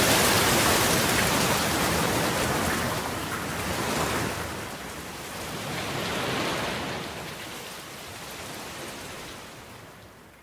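Steady hiss of rain, easing and swelling a little, then fading out toward the end.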